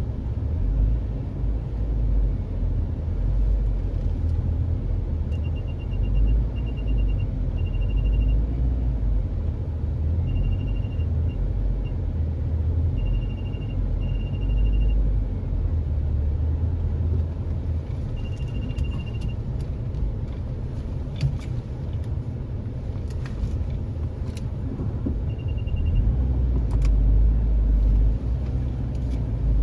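A car engine running at low speed during a slow parking manoeuvre, with a steady low rumble. Over it come short runs of rapid high-pitched beeps, typical of parking sensors warning of a nearby obstacle.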